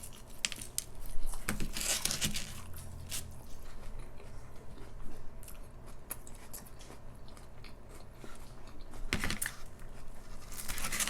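A person biting into and chewing crunchy food close to the microphone, with irregular crackling crunches, the loudest about a second in and more clusters near the end.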